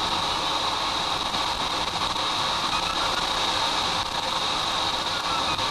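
Steady rush of airflow over a glider's canopy, heard from inside the cockpit, with a constant high hiss.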